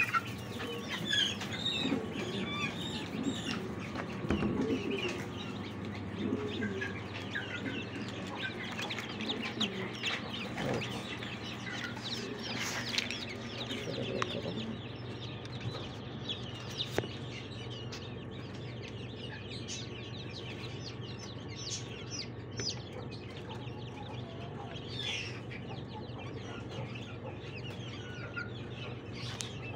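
Young chickens clucking and cheeping, with many short high peeps, over a steady low hum.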